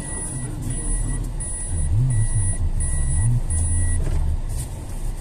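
Electronic warning beeper sounding six evenly spaced beeps, about one every 0.7 s, stopping about four seconds in, over a vehicle's low rumble.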